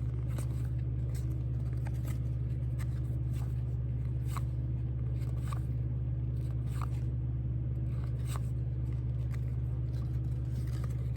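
A steady low hum runs underneath, with faint soft ticks and scrapes of trading cards being slid and flipped through by hand.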